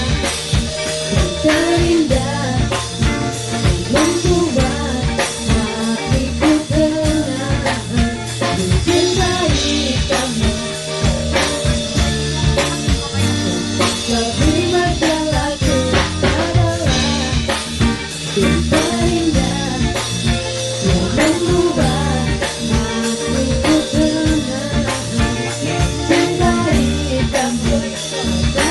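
A woman singing into a handheld microphone over band accompaniment with drum kit and guitar, a steady beat with drum hits throughout.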